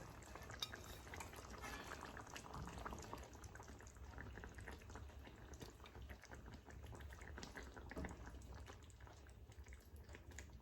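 Faint clinks and scrapes of a spoon as thick coconut chicken curry is ladled onto a plate of rice, over a low steady hum.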